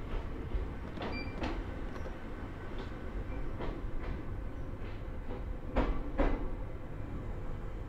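Ohmi Railway train running over jointed track, heard from inside the car. A steady rumble is broken by three pairs of wheel clicks over rail joints, the loudest pair about six seconds in.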